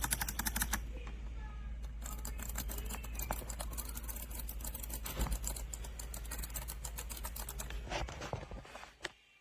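Keys of a gaming keypad clicking in rapid, even succession. The clicking breaks off about a second in, resumes about two seconds in, and stops near the end.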